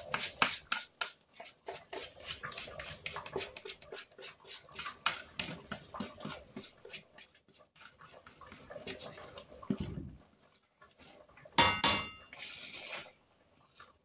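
A spoon stirring thick cornbread batter in a plastic bowl, with quick clicking strokes several a second that thin out as the batter is poured into a hot cast iron skillet. Near the end comes a sharp clank that rings briefly.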